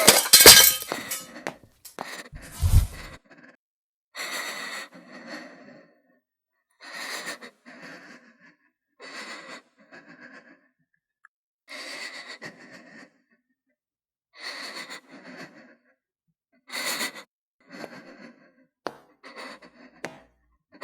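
A loud crash at the start and a deep thud about three seconds in, then a person breathing heavily and nervously, one breath every one to three seconds.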